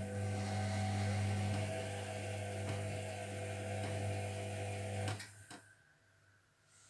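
Zerowatt/Hoover Performa 1000 washing machine in its main wash: a motor hums steadily over a rushing noise for about five seconds, then cuts off abruptly with a click, and a couple more clicks follow.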